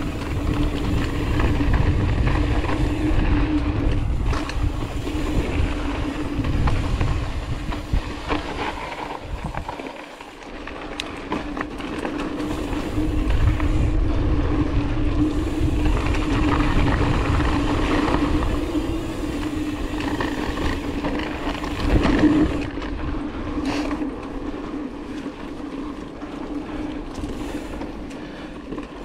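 Ibis Mojo 4 mountain bike being ridden over a dirt trail: tyres rolling on dirt and the bike rattling over bumps, with a steady hum. The noise eases off briefly about ten seconds in, and there is a sharp jolt about 22 seconds in.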